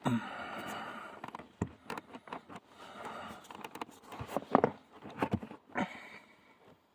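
Accelerator pedal assembly of a 2002 Mercedes-Benz CL500 being wiggled loose from its mount under the dashboard: irregular plastic and metal clicks, knocks and scraping. The loudest knock comes a little past halfway, and the sounds die away near the end.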